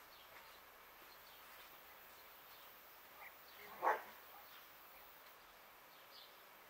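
A single short animal call about four seconds in, the loudest sound here, over a faint background of scattered bird chirps.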